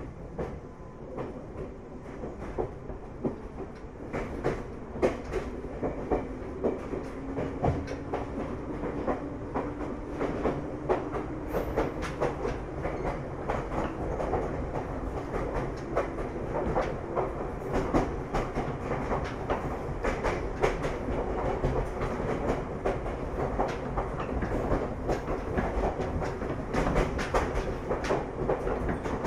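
Ryutetsu 5000-series electric train, recorded from inside the motor car KuMoHa 5001, running on jointed track: steady rumble with wheels clicking over the rail joints. A motor hum rises in pitch about a quarter of the way in, then holds steady.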